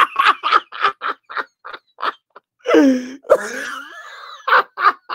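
A man laughing hard: a quick run of short breathy bursts of laughter, about three or four a second, then louder, higher-pitched wheezing laughter in the second half.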